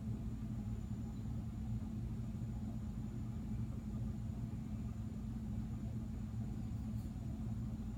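HP LaserJet M225dw laser printer running through its power-up after being plugged back in with the fax board disconnected: a steady low hum.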